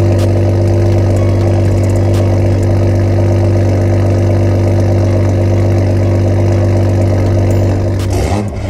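2021 Toyota Supra A90 idling steadily through a Magnaflow xMod cat-back exhaust with a catless (straight-pipe) downpipe, loud and even; the sound drops away near the end.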